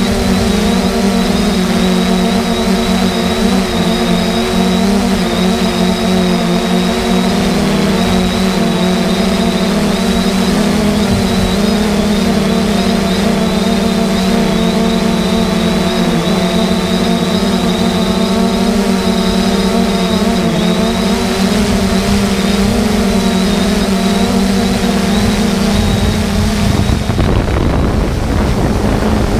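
Multirotor drone's electric motors and propellers humming at a steady pitch while it hovers, heard from the GoPro mounted on it. Near the end wind rushes over the microphone and partly covers the hum.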